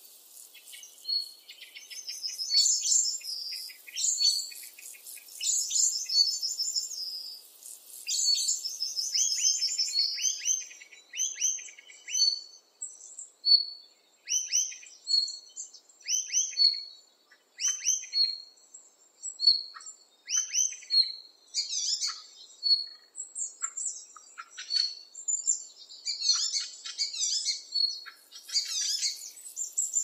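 Songbirds singing: a chorus of rapid high chirps and trills, then short phrases repeated again and again by separate birds.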